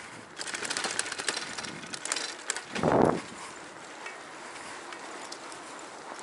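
Rustle and clatter of a body-worn camera being carried quickly along paved streets, busy with clicks for the first two seconds or so, then one loud muffled thump about three seconds in, then a quieter steady hiss of movement.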